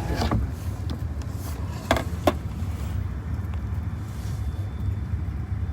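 Car running, heard from inside the cabin as a steady low rumble, with a few sharp knocks: one just after the start and two close together about two seconds in.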